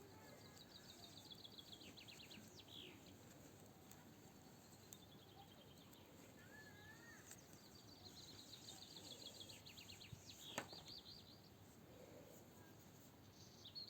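Faint songbird singing outdoors: twice, a run of quick repeated notes falling in pitch and ending in a downward flourish, with a short warble in between. A single sharp click about ten and a half seconds in.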